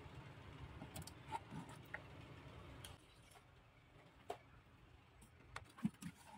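Faint, scattered clicks and crackles of stiff plastic blister packaging being handled and drawn out of a cardboard box. The sharpest few ticks come near the end.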